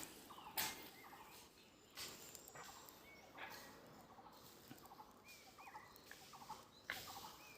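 Birds calling: short rattling calls repeated every second or two, with a few higher chirps between them.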